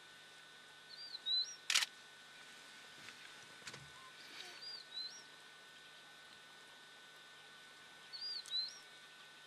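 A bird repeats a short two-part whistled call three times, about every three and a half seconds: a rising-and-falling note followed by a quick upward flick. A single sharp click comes about two seconds in.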